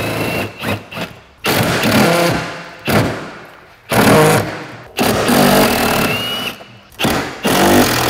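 Handheld cordless power driver working rusted 10 mm bumper fasteners loose in a series of short trigger bursts, each about a second long, with the motor's pitch running under each burst.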